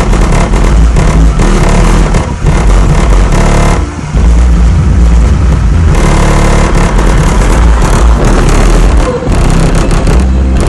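Heavy bass music played very loud through two Sony Xplod 12-inch subwoofers in a 6th-order bandpass box tuned to 44 Hz, heard from outside the car. Deep held bass notes step from one pitch to another, with a brief dip in loudness about four seconds in.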